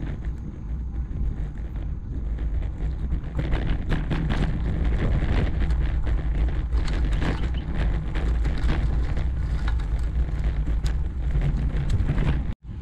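Wind buffeting an action camera's microphone on a moving road bike: a steady low rumble with crackly gusts, louder from about four seconds in. The sound drops out for an instant near the end.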